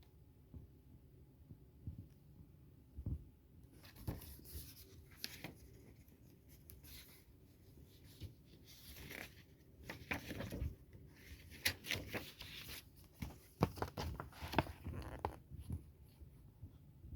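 DVD packaging being unwrapped, with crinkling and tearing plus sharp clicks. It starts about four seconds in and stops a little before the end.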